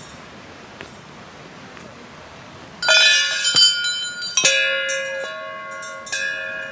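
Small metal bells hung along a railing, struck by hand one after another, each strike ringing on in clear overlapping tones. The first strike comes about three seconds in, a second louder one a second and a half later, then a few lighter ones.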